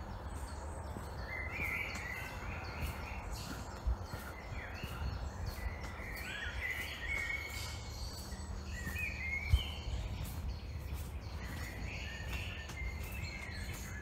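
Songbirds singing in a leafy forest, several short warbling phrases over a steady low rumble, with footsteps on a dirt path and two dull thumps, about four and nine and a half seconds in.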